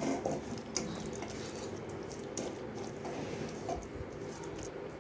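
Spiced onion-tomato masala with curd sizzling in a pressure cooker base as it is sautéed, a steady hiss with a few light clicks of the stirring spoon.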